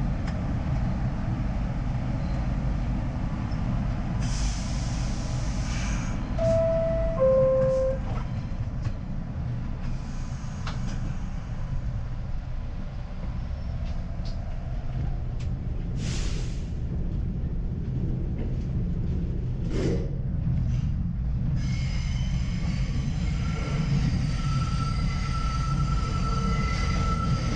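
R62A subway train on the 7 line running through the tunnel: a steady rumble of wheels on rail. A set of thin high whining tones joins in about two-thirds of the way through.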